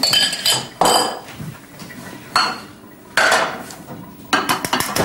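A small metal saucepan and a spoon clinking and scraping in several short bursts.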